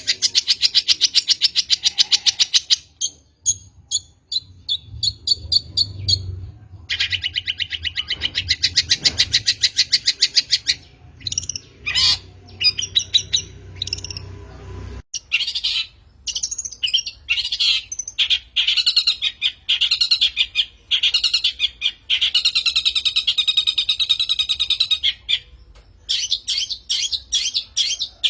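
Long-tailed shrike (cendet) singing: fast rattling trills alternating with varied sharp chirps and short phrases, with brief gaps between bursts.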